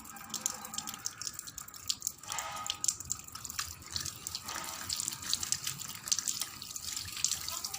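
Tap water running into a sink, splashing irregularly.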